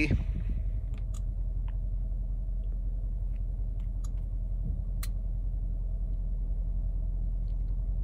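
Steady low hum with a few faint, short clicks as a stylus taps the touchscreen of an Autel scan tool.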